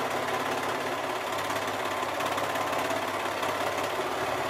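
Brother 1034D four-thread serger running steadily at an even speed, stitching and trimming the edge of a ponte knit scrap as a test seam.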